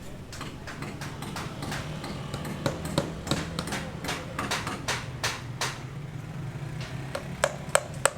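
Building-site work: irregular sharp knocks and taps, several a second at times, with a few louder strikes near the end, over a steady low hum.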